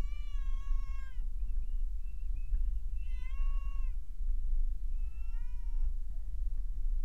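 Steady low rumble of a car driving, heard from inside the cabin, with three drawn-out high cries about a second long, each falling in pitch at its end.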